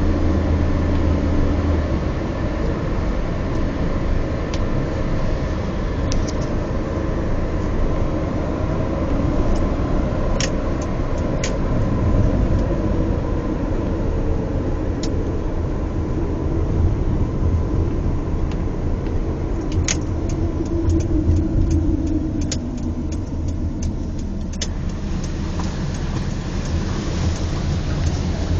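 A car driving, heard from inside: a steady low engine and road rumble, with scattered sharp clicks and knocks.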